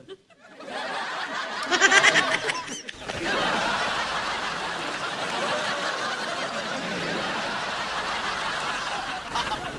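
Laughter: several people chuckling and laughing together, loudest about two seconds in, then a steady run of mixed laughter.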